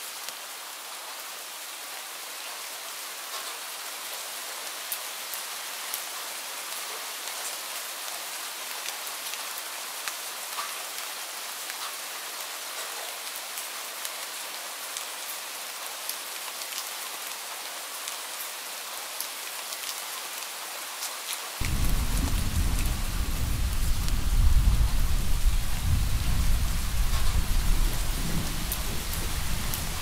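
Steady rain falling, with scattered drop ticks. About two-thirds of the way in, a deep rumble of distant thunder comes in suddenly and keeps rolling, louder than the rain.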